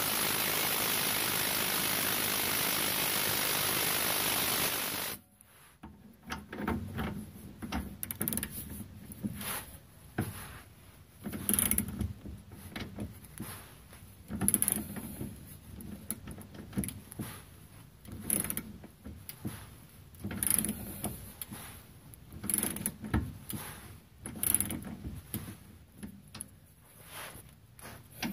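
Hand-held gas torch hissing steadily while heating a rusted suspension-link bolt, shut off suddenly about five seconds in. Then a ratchet wrench clicking in short bursts every second or two as the socket works the bolt.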